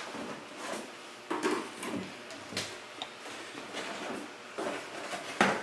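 Plastic ink bottles being lifted out of a cardboard box and set down on a table: a handful of light, irregular knocks with handling noise between them, one of the firmest near the end.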